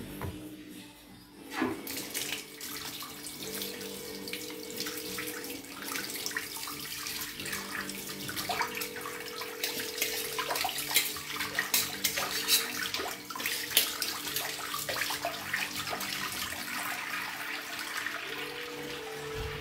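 Water running from a kitchen tap into the sink, starting about a second and a half in, with scattered clinks of dishes being handled under it.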